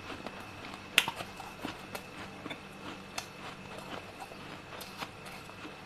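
Freezer frost being bitten and crunched close to the microphone, played slowed down: scattered sharp cracks and crackles, the loudest about a second in.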